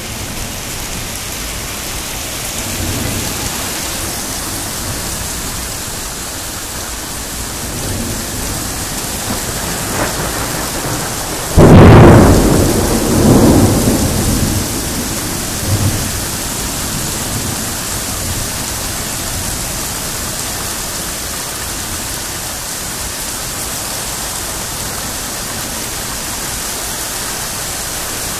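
Steady rain with a few faint rumbles of thunder, then a sudden, loud crack of thunder about twelve seconds in that rolls on for a few seconds before fading back to the rain.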